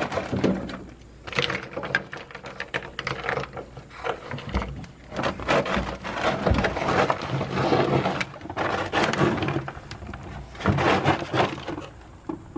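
Factory sound-deadening mat on a car's steel floor, frozen with dry ice: irregular crackling and popping in bursts as the deadening cracks and pops loose from the metal.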